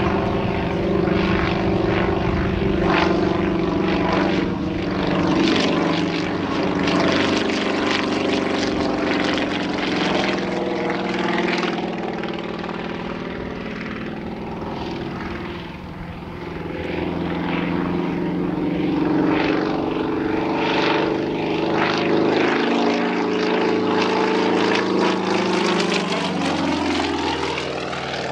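Yak-55M aerobatic plane's Ivchenko M-14P nine-cylinder radial engine and propeller running hard during aerobatics. The engine note wavers up and down, dips in level about halfway through, and rises in pitch near the end.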